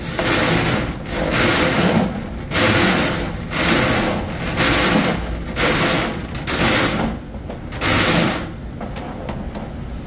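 Motorised drain-snake machine running, its spinning steel cable pulled back out of the drain line by gloved hands, with a harsh rasp about once a second over the steady motor hum. The rasps stop about eight and a half seconds in while the motor keeps running.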